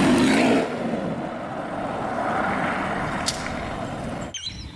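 A BMW Z4 sports car's engine running as the car drives. It is loudest in the first half second, settles into a steady rush, and cuts off suddenly near the end.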